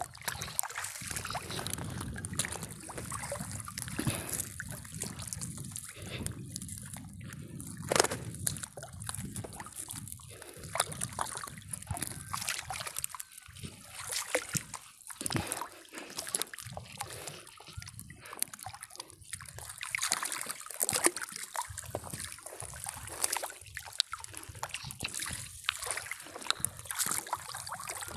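Water dripping and splashing as a fishing net is hauled in by hand over the side of a small boat, with a netted fish thrashing at the surface.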